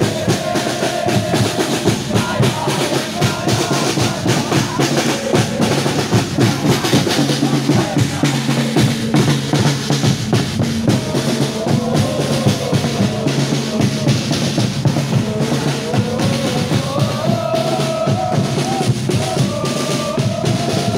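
Football supporters' drums beating steadily in a marching rhythm, with a crowd singing a chant over them.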